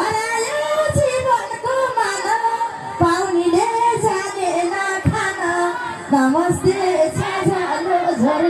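A woman sings a Nepali lok dohori folk song live into a handheld microphone, the melody held and bending in long notes. Sharp beats sound under the voice about every two seconds, coming quicker near the end.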